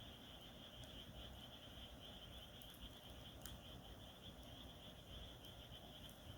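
Faint campfire crackle, a few sharp pops of burning wood about a second or more apart, over crickets chirping steadily.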